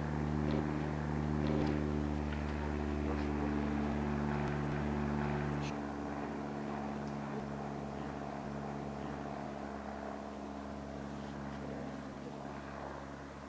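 Piper PA-28 Cherokee single-engine light aircraft flying overhead, its piston engine and propeller running steadily. The sound drops in level about six seconds in, then slowly fades as the plane moves away.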